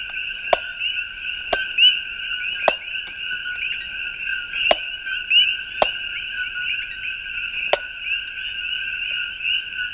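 Six sharp chops of a Bark River Tracker knife striking a coconut, irregularly spaced a second or two apart, over a dense, steady chorus of chirping frogs.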